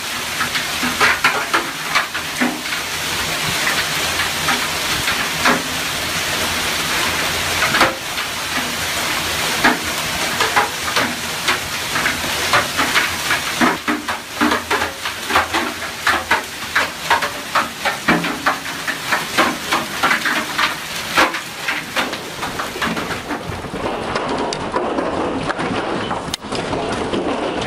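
Heavy hail pelting down: a dense hiss of hailstones hitting the ground, with many sharp cracks of single stones striking hard surfaces. Near the end it turns into a steadier hiss of hail splashing into a swimming pool and onto paving.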